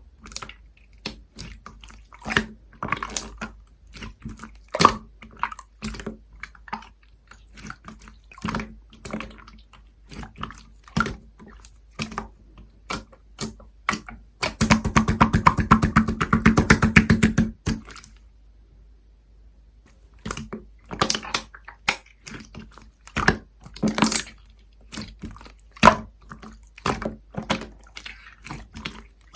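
Slime being squished and pressed by hand, giving a string of sticky clicks and small pops. About fourteen seconds in comes a quick run of dense crackling pops lasting about three seconds, followed by a short pause before the clicking resumes.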